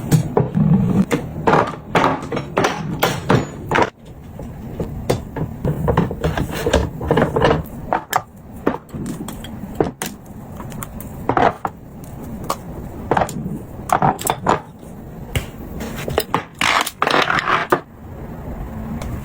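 Household cleaning and tidying: objects being handled and set down, making irregular knocks, taps and scrapes.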